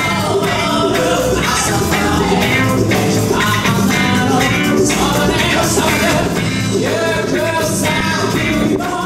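A live band playing a song with vocals over drums, electric guitar, bass guitar and electric keyboard.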